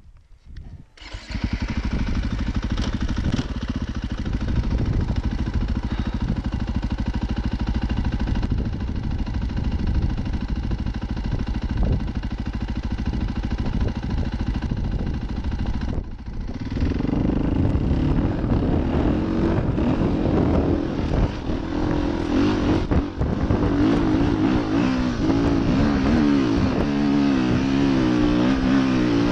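KTM EXC dirt bike's single-cylinder engine running under load on a steep climb. It is louder in the second half, its pitch rising and falling as the throttle is worked.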